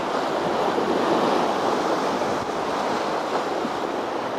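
Sea waves washing in steadily, mixed with strong wind.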